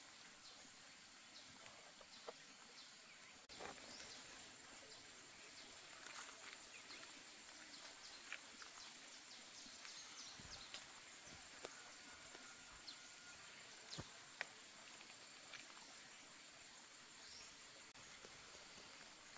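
Near silence: faint outdoor ambience with a thin, steady high tone and scattered light clicks and ticks.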